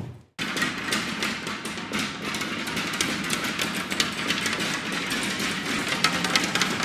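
Kinetic sound installation of many tall thin rods set moving, giving a dense, steady crackle of countless small clicks and taps. It starts abruptly a moment in.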